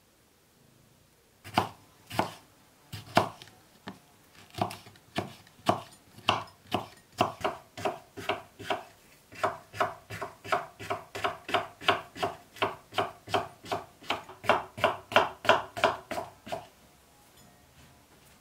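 Kitchen knife chopping bell peppers on a wooden cutting board. A few scattered strokes come first, then a steady run of about three chops a second, which stops shortly before the end.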